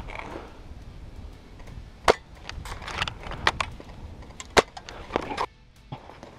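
Sharp clicks and knocks with rustling, from an airsoft sniper moving and settling with his rifle and gear; the two loudest knocks come about two seconds in and about four and a half seconds in.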